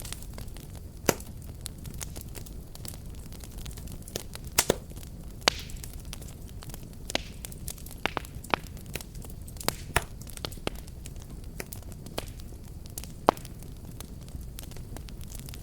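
Wood fire burning with a steady low rumble and irregular sharp crackles and pops, a few of them much louder than the rest.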